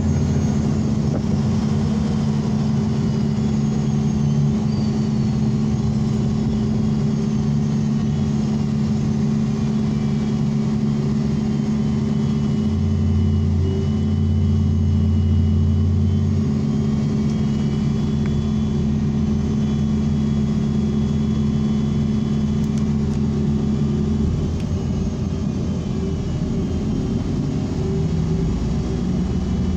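ENC city bus heard from inside the passenger cabin while driving: a steady engine and drivetrain hum with road noise and a faint high whine. The engine note shifts lower near the end.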